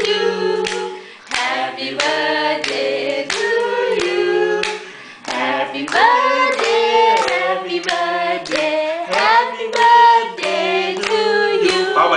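Several voices singing a song together at a child's birthday, with hands clapping along.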